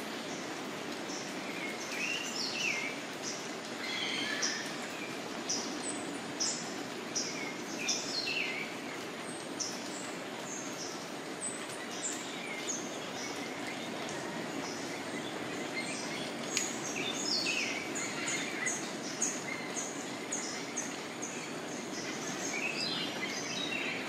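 Tropical rainforest birds calling: many short, repeated chirps and whistles from several birds, busiest past the middle, over a steady low hiss of forest background noise.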